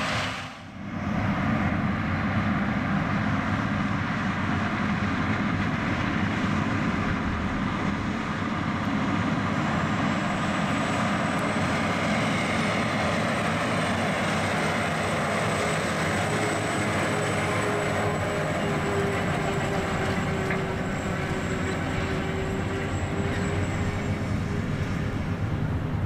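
John Deere 9RX-series four-track tractor's diesel engine running steadily under load as it pulls a Kinze 1205 grain cart.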